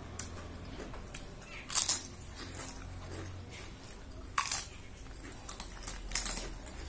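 Fried papad being bitten and chewed close up: crisp crunches, three loud ones spaced about two seconds apart, with lighter crackling between.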